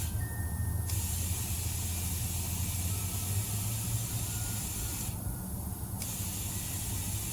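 Compressed air hissing steadily into a car tire through the inflator chuck over a low steady hum from the compressor, as the freshly plugged tire is filled toward 40 psi. The hiss stops for a moment near the start and again about five seconds in.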